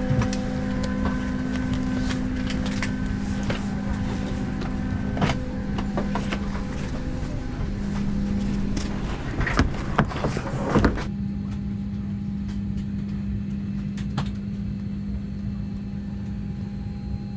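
Boeing 737-600 cabin during boarding: a steady low drone of the air-conditioning with a hiss of airflow, and scattered clicks and knocks from passengers settling in, a few louder knocks close together about ten seconds in. The hiss drops away suddenly about eleven seconds in, leaving the low drone.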